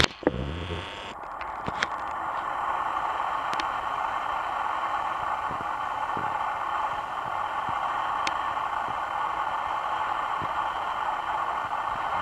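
Kenmore Victorian-style six-blade ceiling fan running: a steady rushing noise that builds over the first couple of seconds after a click at the start, with a few faint ticks.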